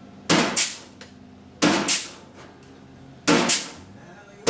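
Pneumatic flanging tool clacking as it crimps the edge of a 1955 Chevy truck door's sheet-steel skin: three sharp double clacks about a second and a half apart, each trigger pull pressing a step flange into the metal so the new panel will sit flush.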